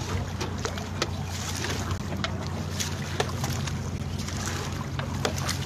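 Motorboat engine running steadily on open water, with frequent short knocks and wind on the microphone.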